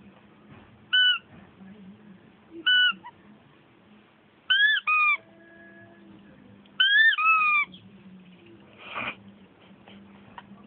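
Rubber squeaky toy squeezed over and over: a single squeak about a second in, another near three seconds, then two pairs of squeaks that rise and fall in pitch, the second pair longer. A short soft breathy noise follows about nine seconds in.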